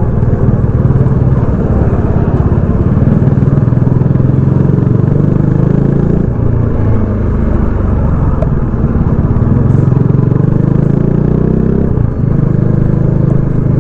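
Kawasaki Dominar 400's single-cylinder engine through its stock exhaust, pulling on the road. The note eases off a few seconds in, climbs again as it accelerates, and breaks briefly near the end.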